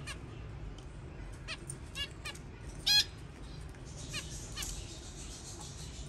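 Young budgerigars giving a few short chirps and squawks, the loudest about three seconds in, with a brief rustle a little later.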